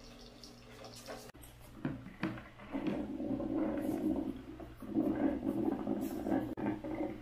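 Philips HD7762 Grind & Brew drip coffee maker gurgling and sputtering as its heater pushes the last hot water and steam through at the end of a flushing cycle, the water tank having run dry. Fairly quiet at first, then about two seconds in the gurgling comes in uneven surges.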